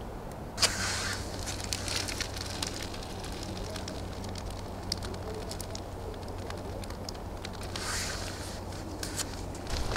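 A match struck about half a second in, flaring with a brief hiss, then a small kindling fire of dry twigs and split wood catching and crackling with many small pops.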